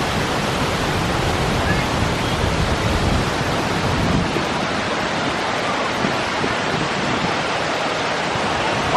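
Steady rushing and splashing water of a river rapids raft ride, from its waterfalls and churning channel.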